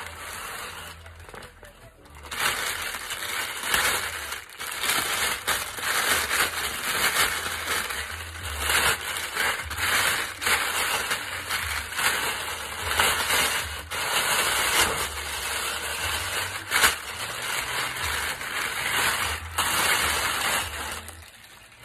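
Thin clear plastic bag crinkling and rustling as it is handled and pulled off a backpack; the crackling starts about two seconds in and goes on densely with brief pauses.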